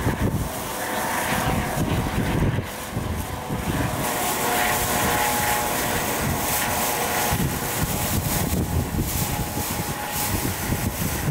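Eurocopter AS365 Dauphin rescue helicopter flying past: steady rotor chop with a thin whine over it.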